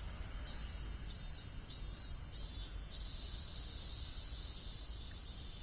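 Cicadas singing: a steady high buzz, with a minminzemi (robust cicada, Hyalessa maculaticollis) pulsing 'min-min' call repeating a little under twice a second and stopping about three seconds in.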